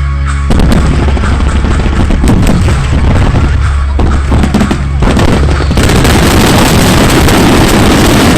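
Fireworks going off in a rapid barrage: a dense run of bangs and pops that thickens into one continuous crackle about six seconds in, with music underneath at the start.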